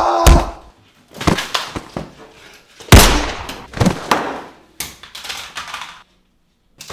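A series of sharp thuds and crashes from a violent scuffle, the loudest about three seconds in, cutting to a brief silence near the end.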